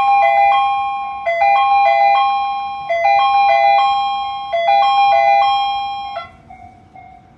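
Japanese railway platform train-approach chime: an electronic jingle of several bell-like notes, repeating about every one and a half seconds, which announces an arriving train. It stops about six seconds in, leaving a fainter pulsing tone.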